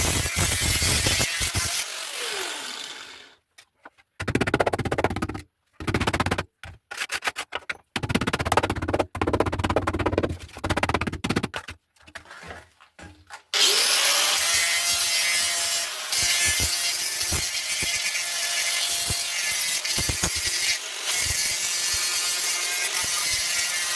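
Rusty steel of an MG exhaust back box being abraded clean for welding, a harsh scraping and grinding. It comes in short stop-start bursts at first, then from about halfway it runs steadily with a motor-like tone under the noise.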